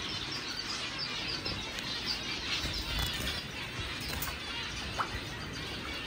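Zebra finches chattering together in a crowded aviary shed: a dense, unbroken mass of short, high chirps and calls, with one brief rising call standing out about five seconds in.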